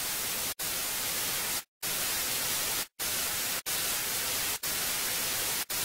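Television static: a steady white-noise hiss, cut by brief dropouts about once a second.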